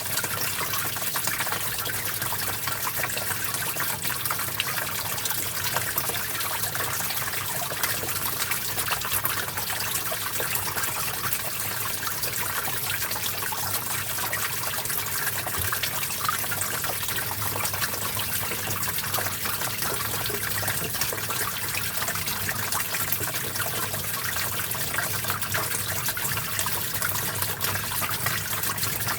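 A small stream flowing steadily, water trickling and splashing over rocks in a continuous bright rush.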